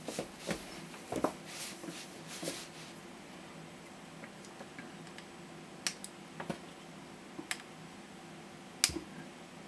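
Plastic housing and tools handled on a workbench for the first couple of seconds, then a few sharp clicks of flush cutters closing on wire ends, the loudest a snip near the end.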